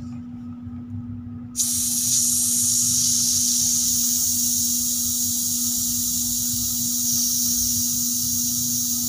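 Air hissing out of the valve of a Lucioli heavy-duty inner tube in a motocross rear tyre as the valve is held open by hand to deflate it fully from about 13 psi. The hiss starts abruptly about a second and a half in and stays loud and steady.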